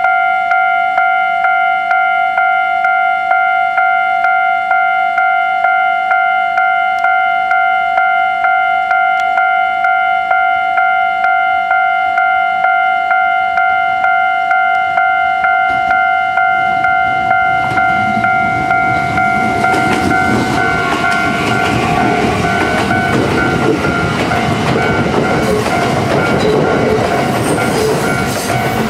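Japanese level-crossing warning bell ringing in a quick, even, repeating electronic ding. From about halfway, a Kintetsu limited express electric train, a 22600-series set coupled to a 30000-series set, approaches and passes with a building rumble and wheel clatter, loud from about two-thirds in, while the bell keeps ringing over it.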